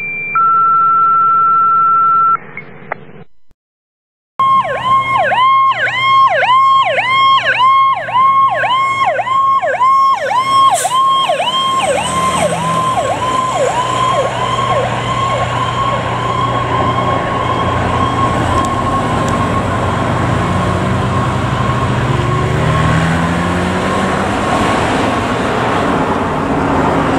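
Two steady pager-style alert tones, one after the other, then after a short gap a fire truck siren sounding in quick falling sweeps, about two a second. After several seconds the sweeps give way to a steadier siren tone over the truck's engine and road noise.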